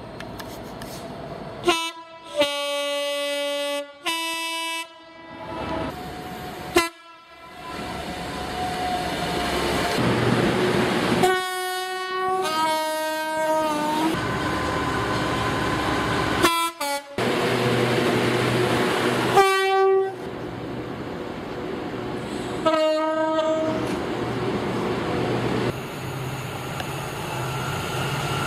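A string of British train horns from different locomotives and multiple units, cut together one after another: short toots and longer blasts, several stepping between two notes in the two-tone high-low pattern. Under the later blasts a passing train rumbles steadily.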